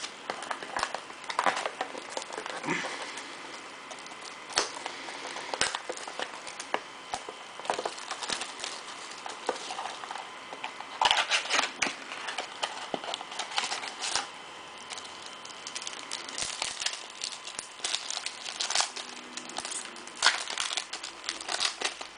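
Foil-lined trading-card pack wrapper being torn open and crinkled by hand: irregular crackling and crinkling that comes in several spells, busiest about eleven seconds in and again near the end.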